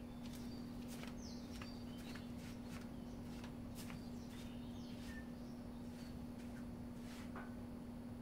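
Birds chirping in short, high, falling calls, over a steady low hum and scattered light clicks and taps.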